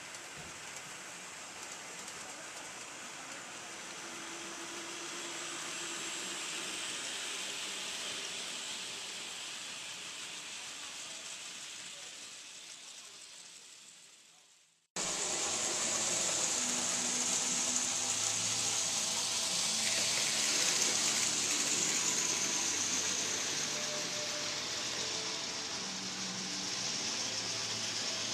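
HO scale model train rolling along the layout's track against a steady hiss of indoor background noise. About halfway through, the sound fades out and cuts abruptly to a louder hiss with a faint low hum.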